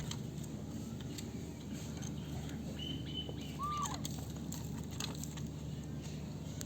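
Two faint, brief animal calls about halfway through, a short high chirp followed by a short call that rises and falls, over a steady low hum and scattered light clicks.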